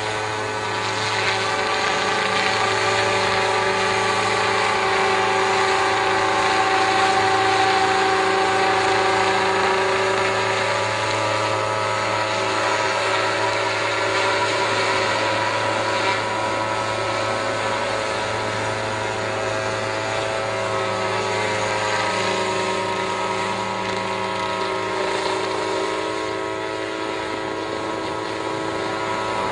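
Small unmanned crop-spraying helicopter flying low, its engine and rotor making a steady drone of constant pitch that fades slightly near the end.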